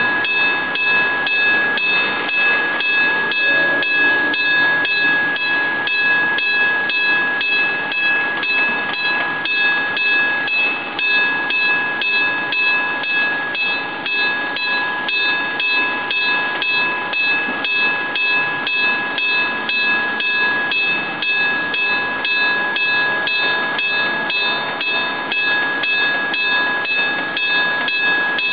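Old electric-bell level crossing alarm ringing without a break, a steady ringing with an even pulse, as the warning that a train is approaching the crossing.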